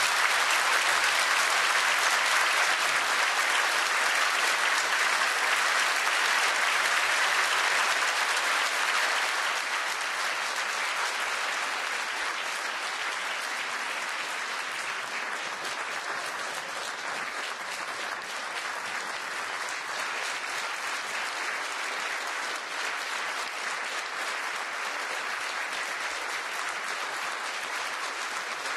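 Sustained applause from a large audience, loudest for the first eight or nine seconds, then easing to a steady level.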